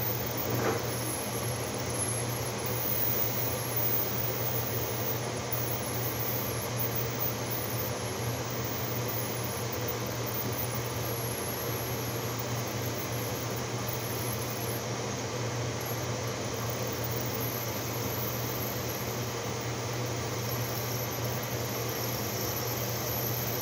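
Steady hiss with a low hum from a pot of water and rosemary boiling on the stove on high.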